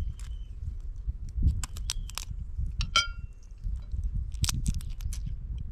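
Irregular cracks and crunches of cooked siri (swimming crab) shell being broken open and chewed, over a low rumble.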